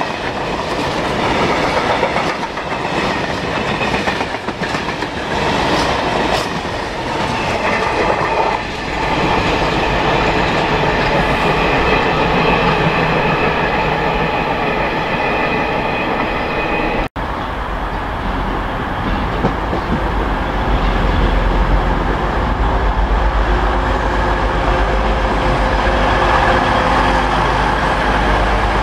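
Freight train of potash hopper wagons rolling past close by, the wheels clicking over the rail joints. After a sudden brief break, a Class 185 diesel multiple unit runs with a steady low engine rumble that strengthens toward the end.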